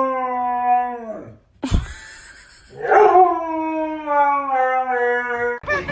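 A dog howling: two long drawn-out howls, the second starting higher and sliding down in pitch, with a brief click between them.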